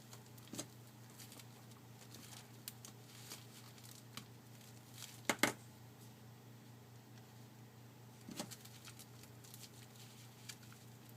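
Faint, scattered clicks and scrapes of a pry tool working around a smartphone's plastic housing as its snap clips are released, with a louder double click about five seconds in and another click about eight seconds in. A low steady hum underneath.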